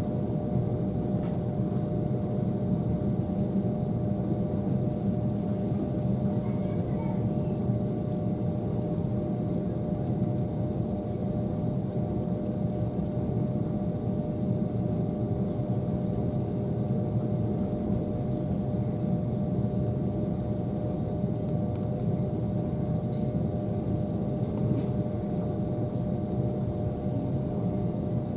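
ET2M electric multiple unit running along the line, heard from inside the passenger car: a steady low rumble of wheels and running gear on the rails, with a constant electrical hum over it.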